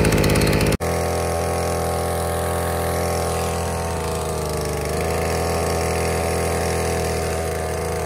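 Small 50cc two-stroke mini dirt bike engine running as the bike is ridden. A louder, rapidly pulsing high-revving stretch cuts off abruptly about a second in, and the engine then runs at a steady, even pitch.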